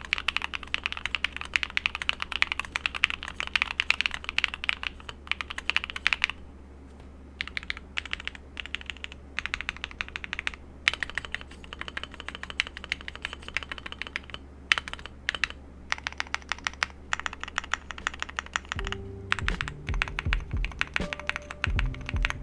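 Fast typing on a stock Luminkey80 gasket-mount TKL mechanical keyboard with Gateron Sylva linear switches: rapid runs of keystroke clacks broken by short pauses. Background music comes in under the typing about 19 seconds in.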